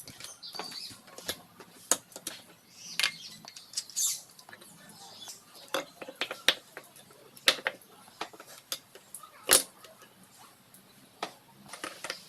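Irregular light clicks and knocks of hand tools and metal engine parts being handled, a few strokes a second at most, with one sharper knock about nine and a half seconds in.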